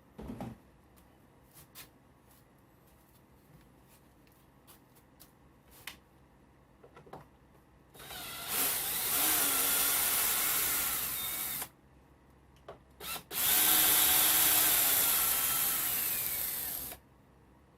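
Power drill backing screws out of wood in two runs of about three and a half seconds each. The motor's whine drops in pitch near the end of the second run. A few light clicks and knocks of handling come before.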